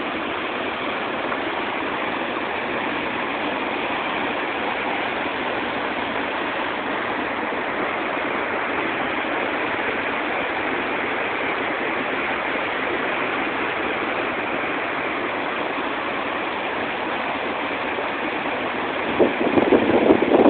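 River water rushing in a steady, even roar. Louder uneven bursts come in near the end.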